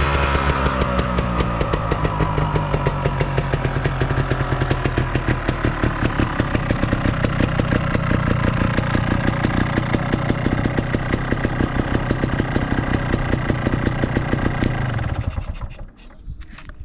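Honda TLM220R's single-cylinder two-stroke engine, breathing through a TOM'S aftermarket silencer, drops back from a rev and idles with an even, pulsing beat, then is switched off about fifteen seconds in. The seller presents it as running without abnormal noise.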